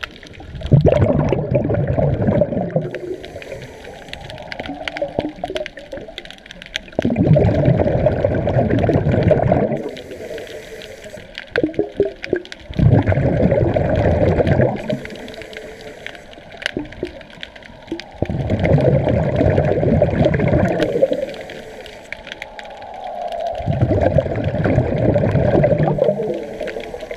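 A diver breathing through a scuba regulator, heard underwater: five bursts of rumbling exhaled bubbles, each two to three seconds long, about every five and a half seconds, with a fainter hiss of inhalation between them.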